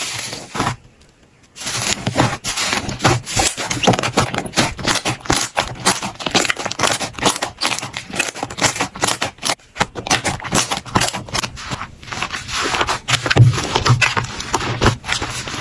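Slime being squeezed, poked and stretched by hand, giving a dense run of crackling, popping clicks. A short quiet break about a second in.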